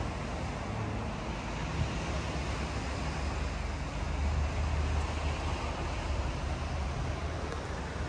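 Outdoor seafront ambience: a steady wash of road traffic and surf, with wind rumbling on the microphone that swells about four seconds in.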